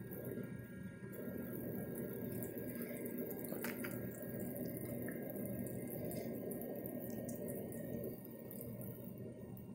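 A toy play sink's faucet running a thin stream of water into a soapy basin, its small pump humming steadily. Light splashes and clicks come from hands working in the water, the clearest about four seconds in.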